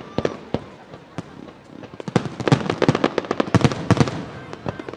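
Fireworks going off: scattered bangs, then a dense volley of shell bursts and crackles from about two seconds in, thinning out near the end.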